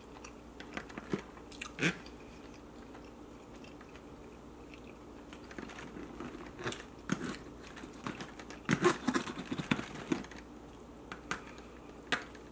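Close-miked eating sounds: chewing, and a metal knife and fork cutting through a sauce-covered wet burrito and knocking and scraping against the takeout container, heard as scattered clicks and short scrapes, busiest about nine seconds in.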